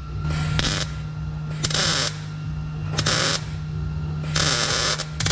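MIG welder putting short tack welds on a steel bracket: four separate crackling bursts of arc, each about half a second long, with a fifth starting at the end. A steady low hum runs underneath.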